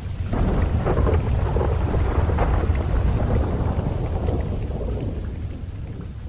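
Long rolling thunder rumble over steady rain, swelling in the first second or so and then slowly dying away.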